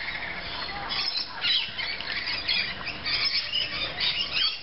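Several birds squawking and chattering at once, a dense run of short, high calls.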